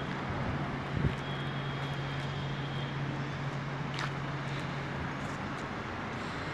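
Outdoor background noise with a steady low engine hum, which stops about a second before the end.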